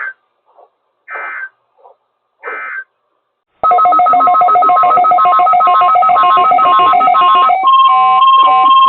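Three short bursts of EAS (SAME) digital data, the end-of-message code that closes a weather radio test. About three and a half seconds in, a much louder electronic sequence of alternating beeping tones starts. Near the end it gives way to a single steady tone, the NOAA Weather Radio warning alarm tone.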